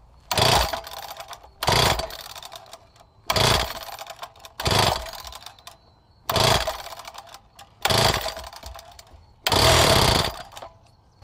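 Seven hard pulls on the recoil starter of a Wacker BTS two-stroke concrete cut-off saw, about one every second and a half, each cranking the engine briefly. The last pull runs longer, about a second, as the engine fires with the choke out but does not catch. The saw has sat unused for months.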